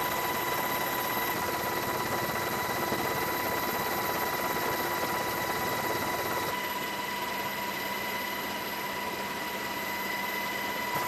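Steady engine and rotor drone from the helicopter carrying the camera, with a constant high whine. About six and a half seconds in, it changes to a slightly quieter, steadier hum with a low tone.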